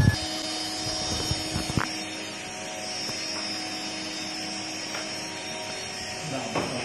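Spindle of a 1300 × 2500 mm CNC wood router running with a steady high whine, with a couple of short knocks in the first two seconds.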